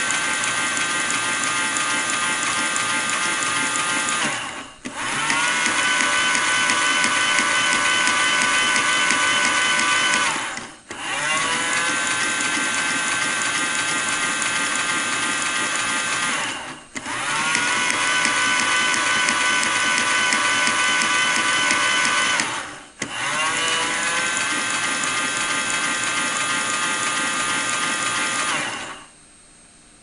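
Toy AEG washing machine's small electric motor turning the drum with a steady whine. It runs in stretches of about six seconds, broken by brief pauses, and each restart rises in pitch as the motor picks up speed. It stops about a second before the end.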